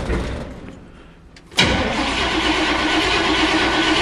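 A 350 V8 in a Model T hot rod being started: the engine noise dies away within the first second, then it turns over again suddenly about a second and a half in and keeps going steadily. It is running on a freshly primed carburettor that still needs tuning and won't settle into a clean idle.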